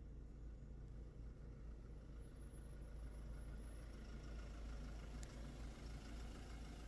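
Car engine idling: a low, steady rumble.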